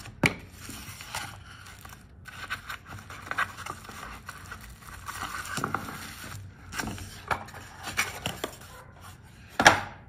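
Packaging being handled and opened by hand: irregular rustling, scraping and small clicks, with a sharp click just after the start and a louder one shortly before the end.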